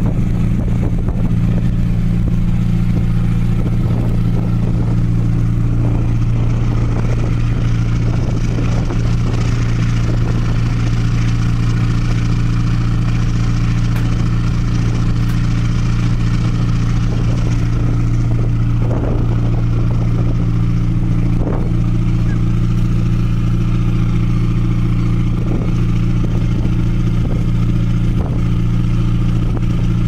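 Cruise boat's engine running with a steady low drone, with a steady hiss of wind and water on top.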